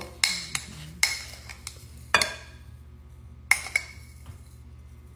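A metal spoon tapping and clinking against a glass spice jar while garlic salt is shaken out over a glass mixing bowl: about five sharp clinks with a brief glassy ring, the last two close together.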